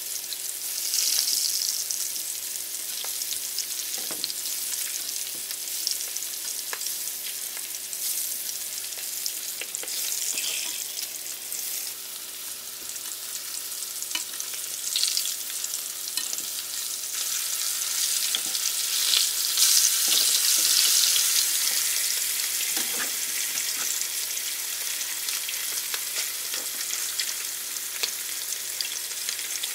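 Salmon fillets frying in hot oil in a pan: a steady sizzling hiss that swells louder about a second in and again about two-thirds of the way through, with light taps and scrapes of a utensil against the pan as the fish is turned.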